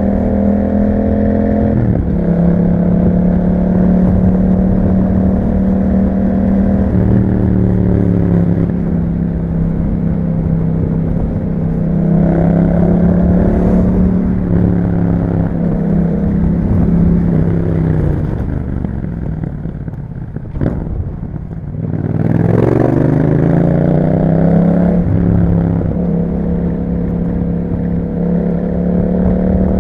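Yamaha MT-07's parallel-twin engine running through an aftermarket Akrapovic exhaust while riding, its pitch stepping with gear changes. About two-thirds through the revs fall away and it slows, then it accelerates hard with the revs climbing.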